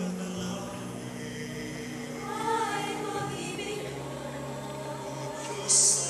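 Mixed choir of men and women singing, holding sustained chords with moving vocal lines. A short, loud hiss cuts in near the end.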